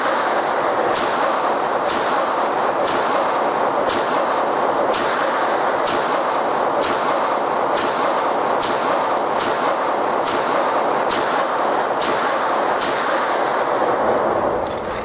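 9mm Beretta 92FS pistol fired at a steady pace of about one shot a second, some fifteen shots in a row with no stoppage, over a constant loud rushing noise.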